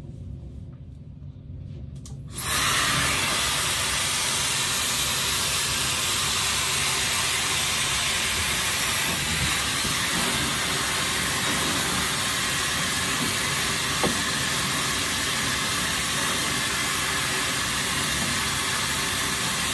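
Coshare SuperFlow 1 negative-ion hair dryer blowing a steady hiss of air. It starts abruptly about two seconds in.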